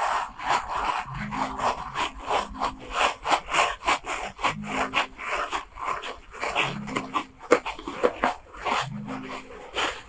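A handheld scalp-exfoliating brush scrubbing through hair against the scalp, a rubbing, scraping sound in quick repeated strokes of about three a second.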